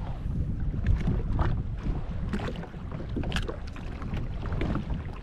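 Wind buffeting the microphone on a jet ski at sea, a steady low rumble, with scattered light knocks and clicks.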